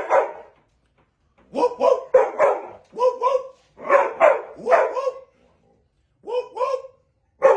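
A dog barking: a dozen or so short barks in bunches of two or three, with pauses of about a second between the bunches.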